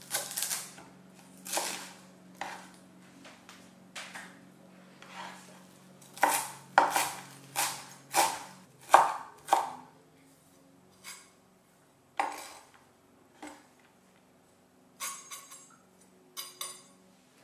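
Kitchen knife chopping fresh dill on a wooden cutting board: irregular sharp chops of the blade striking the board. There is a quick, loud run of chops in the middle and a few scattered ones after.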